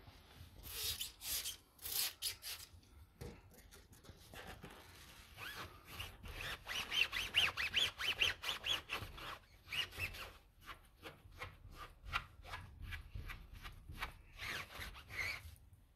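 A few quick squirts of a trigger sprayer, then a microfiber cloth rubbed hard over a tyre's rubber sidewall in fast strokes, squeaking at about four strokes a second in the middle, as it wipes road tar loosened by tar remover off the tyre.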